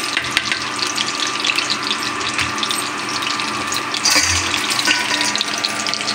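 Besan-coated leaf rolls shallow-frying in hot oil in a kadhai: a steady crackling sizzle full of tiny pops. A brief louder knock comes about four seconds in.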